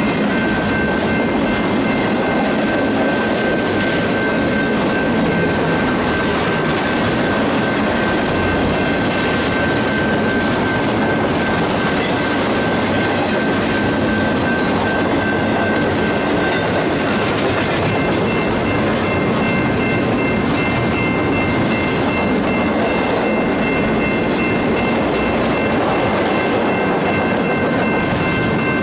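Empty intermodal well cars of a BNSF freight train rolling past close by: a steady, loud rolling noise of steel wheels on the rails, with a thin high steady ringing tone over it; a second, higher ring joins about two-thirds of the way through.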